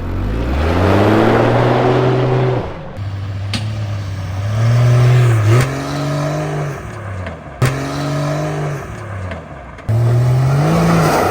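Supercharged Jeep Cherokee engine accelerating hard. Its pitch climbs, then drops abruptly, about five times as it shifts up through the gears.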